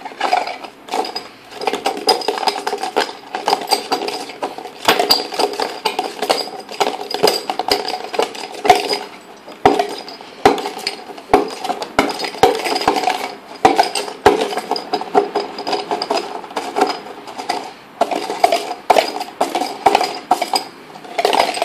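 Homemade shaker made of a paper coffee cup with a balloon stretched over its mouth, shaken and tipped back and forth by hand. Small hard objects inside rattle and clink against the cup and the rubber membrane in a long, uneven run of clicks and clatters.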